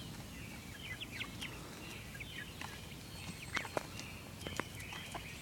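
Chickens pecking and tearing at cabbage: scattered light taps with faint, short high chirps.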